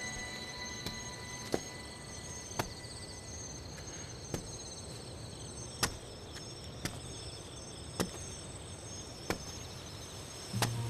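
Insects chirping steadily, with sharp single clicks at irregular intervals of about a second or so.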